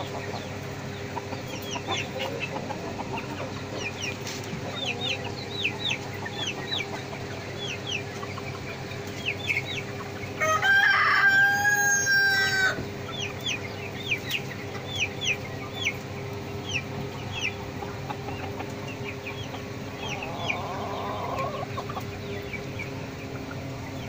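Lavender cuckoo Cochin bantam rooster crowing once near the middle, a high-pitched crow lasting about two seconds. Many short, high chirps from other birds keep up throughout.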